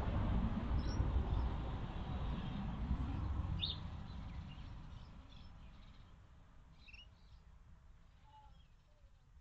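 A vehicle's low rumble fading away over the first four or five seconds, followed by a few short bird chirps.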